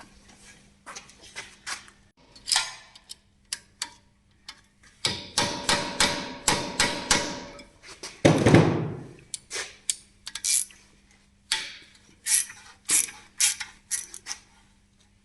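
Ratchet wrench and metal hand tools at work: runs of quick ratchet clicks and tools clinking, with one heavier knock about eight seconds in.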